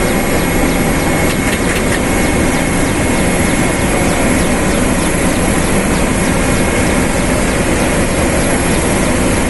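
Firefighting helicopter in flight, heard from inside the cockpit: a loud, steady roar with a thin, steady high whine.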